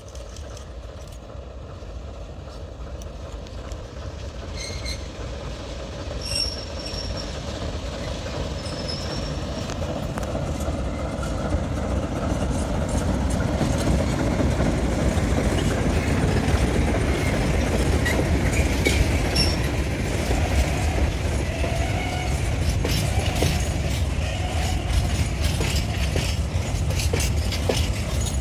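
TEM2 diesel shunting locomotive approaching and passing at close range, its engine rumbling and growing louder over the first half. Then a string of open freight wagons rolls by, with irregular clicks of the wheels over the rails.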